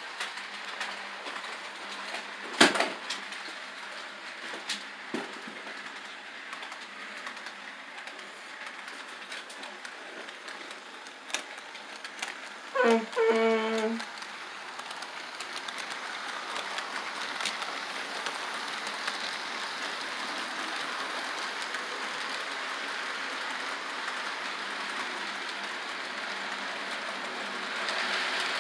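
HO-scale model train running on sectional track: a steady rolling rattle of the locomotives and cars that grows louder in the second half as the freight cars come past. There is one sharp click about two and a half seconds in, and a short pitched sound in two parts about thirteen seconds in.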